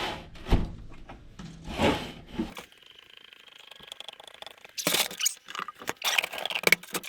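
Scraping, rubbing and knocking of things being handled, with a quieter stretch in the middle and a burst of clattering near the end.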